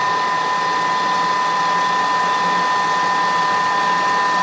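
Thermomix TM6 running its pre-clean cycle, its blade spinning water and dishwashing liquid around the bowl to loosen yeast-dough residue: a loud, steady whirr with a high, steady whine over it.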